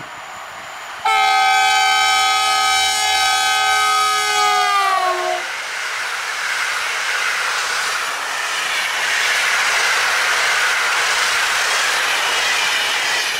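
Newag Griffin EU160 electric locomotive sounding its horn in one long blast, the Polish RP1 'Baczność' (attention) warning signal, as a chord of several tones. It starts suddenly about a second in, and its pitch drops as the locomotive passes. Then comes the steady rumble and clickety-clack of the Intercity coaches rolling by.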